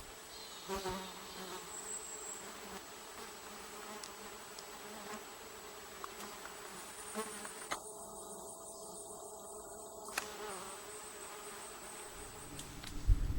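Flying insects buzzing in a steady hum, with a faint, high, finely pulsing chirr through the second half.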